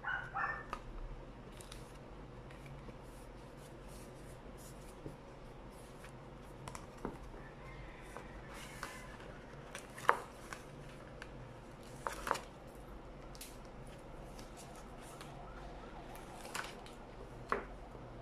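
Sheets of paper being handled, folded and pressed together while a pop-up card is assembled: soft rustling and creasing, with a few sharp paper snaps and taps, the loudest about halfway through and again a couple of seconds later.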